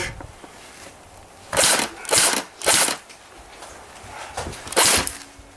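Airsoft rifle firing short full-auto bursts with a fast mechanical rattle: three bursts in quick succession a little over a second in, then one more near the end.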